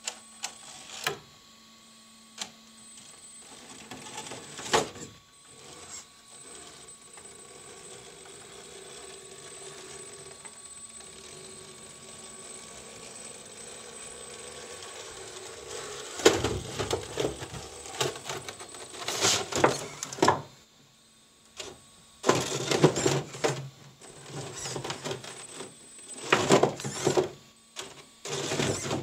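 Traxxas TRX-4 RC crawler, running on a 3S battery, driving slowly over rock and wooden boards: its electric motor and geartrain whine while its tyres and chassis knock and clatter on the wood. The drive is a low steady hum at first, then comes in repeated louder bursts from a little past halfway.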